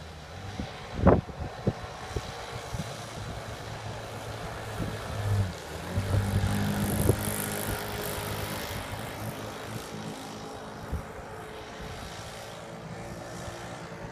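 Four-stroke Troy-Bilt weed-eater engine powering a Dumas Scarab 38 RC boat, running at speed as a steady drone that grows louder as the boat passes close around the middle and then eases off as it runs away. A few sharp thumps on the microphone near the start.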